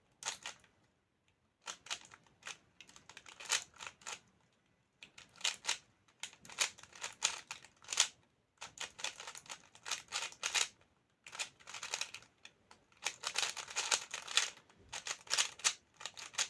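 Clicking and clacking of a 3x3 speedcube's plastic layers being turned fast during a solve, in quick runs of turns with brief pauses between them.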